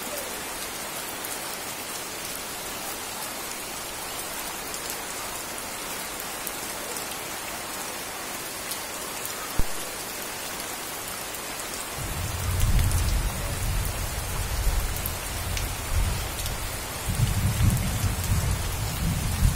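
Steady hiss of rain falling on wet surfaces, with faint ticks of drops. A single sharp knock near ten seconds in, then heavy uneven low rumbling from about twelve seconds in.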